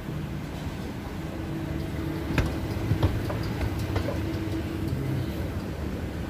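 Airport terminal hall ambience: a steady low hum with a few sharp clicks about two and a half to four seconds in.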